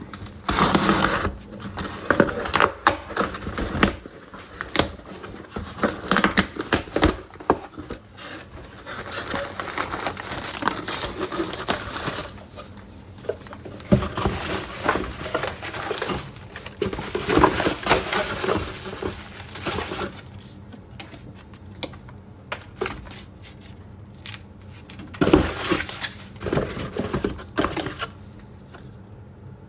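A shipping package being torn and unpacked by hand: tearing and crinkling packaging with scattered knocks and clicks, in irregular bursts.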